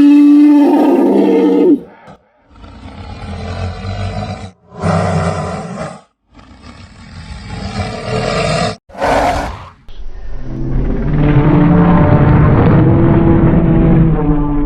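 Dragon creature sound effects made from animal recordings: a roar ending about two seconds in, three separate rasping growls, a brief high-pitched burst, then a long, loud roar from about ten seconds on.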